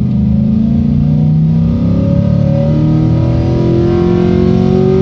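Chevy pickup engine running on compressed natural gas, heard from inside the cab, accelerating in gear and revving out toward about 6,000 rpm. Its pitch climbs steadily.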